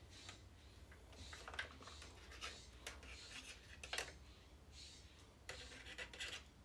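Faint scattered clicks and scratchy rubbing of fingers working a rubber oil line onto the oil pump fitting of a Stihl 029 chainsaw, with one sharper click about four seconds in.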